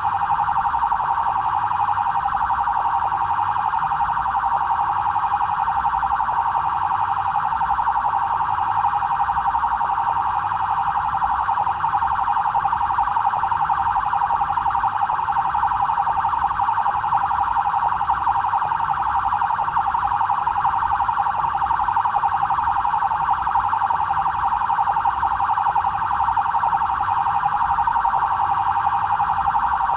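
BAEP police vehicle siren sounding continuously: a fast warbling electronic tone centred around one kilohertz, holding steady in pitch and loudness without rising or falling.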